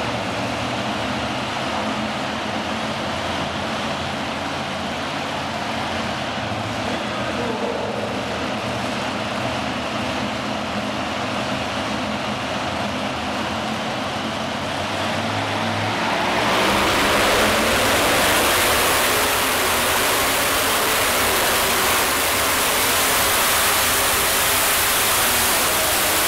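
Modified pulling tractor's supercharged engine running at the line with a steady, lumpy idle and a couple of short throttle blips. About 16 seconds in it goes to full throttle as the pull starts, and it runs flat out, much louder, dragging the weight sled down the track.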